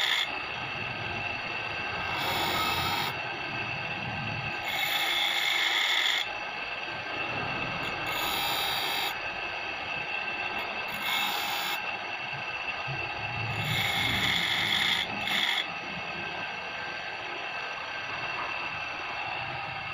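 A motor-driven grinding wheel running with a steady whine while the teeth of a circular saw blade are ground against it one at a time. Six harsh grinding passes of about a second each come roughly every three seconds, then stop about three-quarters of the way through while the wheel keeps running.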